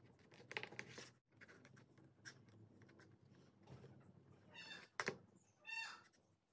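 Faint clicks and clinks of a steel wire spring, nuts and washers being handled and fitted onto a small wooden match gun, with a sharp click near the end and two short squeaks, one just before it and one just after.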